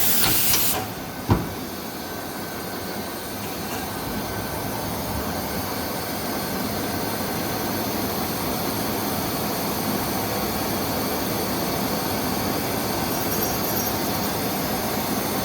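Mazak Integrex 100-IISY CNC turning and milling center running its cycle with a steady mechanical noise. A burst of hiss ends just after the start, and a single sharp click comes about a second in.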